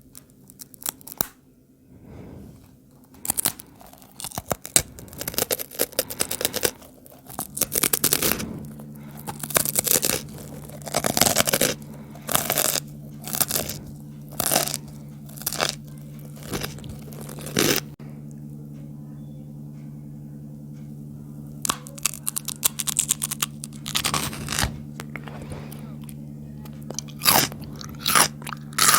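Close-up crunching and chewing of Kurkure snacks and raw cucumber, many crisp bites in clusters, with a lull of a few seconds past the middle. A steady low hum runs underneath from about eight seconds in.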